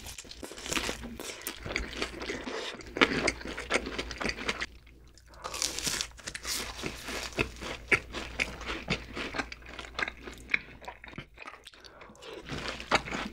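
Close-miked crunching bites and chewing of crispy fried chicken and fried cheese balls, a dense run of sharp crunches. The loudest crunch comes about three seconds in, and there is a short lull about five seconds in.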